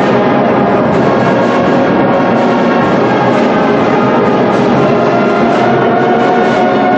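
Loud, steady music.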